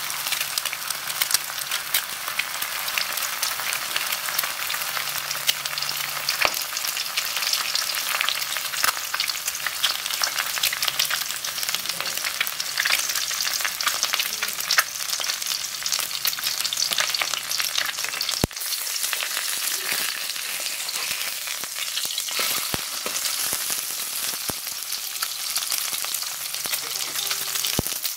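An egg frying in hot oil in a pan, sizzling with a steady dense crackle of small spattering pops as the white bubbles and its edges brown.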